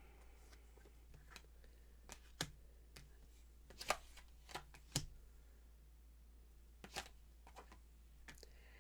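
Tarot cards being handled: a few scattered soft snaps and taps of cards, with gaps between them.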